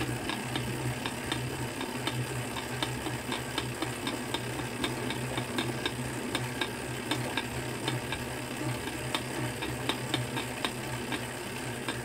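Tacx smart trainer being pedalled: a steady hum from the trainer and drivetrain, with a rapid, irregular cracking of small sharp clicks. A cracking noise like this can come from a lack of grease on the spacer or cassette body in the trainer axle.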